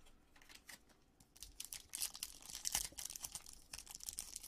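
Foil wrapper of a Topps Chrome trading-card pack crinkling and tearing as it is ripped open, starting about a second and a half in after a few soft clicks.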